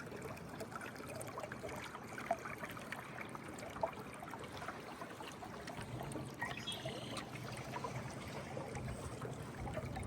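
Gentle trickling and lapping water, with small scattered splashes and ticks.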